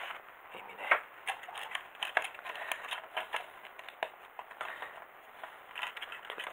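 Small plastic parts of a Robi 2 robot kit's ear clicking and tapping as they are handled and fitted together by hand: irregular light clicks, the sharpest about a second in.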